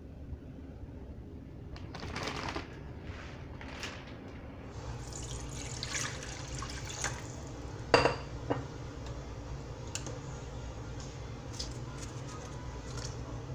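Cold water poured into a nonstick saucepan, splashing for a couple of seconds, with a rustle before it and a sharp knock, the loudest sound, just after it. A few small clicks follow.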